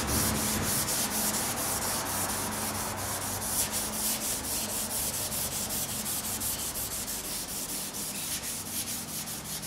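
A scouring pad scrubbing the lathe's metal bed in rapid back-and-forth strokes, several a second, a steady rasping rub: surface rust being scoured off.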